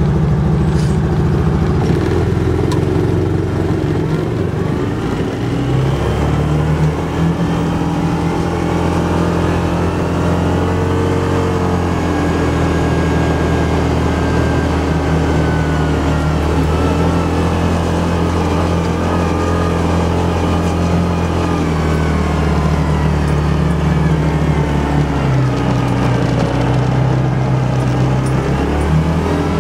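Engine of an open off-road 4x4 running under load while driving over beach sand. Its pitch steps up and down several times as the throttle and gears change, with slow rises and falls around the middle.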